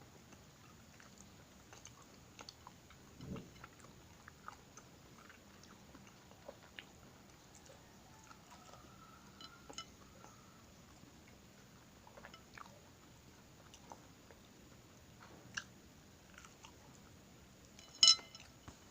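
Slow, sparse chewing: small crunchy clicks and nibbles spaced out over a faint background, with a low thump about three seconds in and one sharp, loud click near the end.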